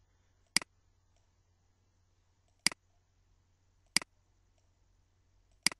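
Four sharp computer mouse button clicks, a second or two apart, over a faint steady low hum.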